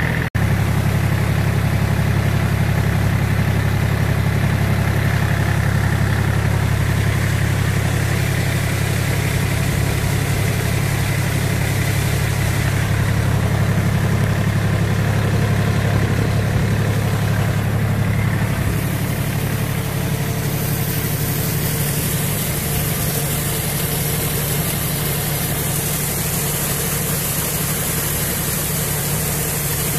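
Yanmar F24D compact tractor's diesel engine running steadily under load while pulling a fertiliser spreader. A steady hiss joins about two-thirds of the way through.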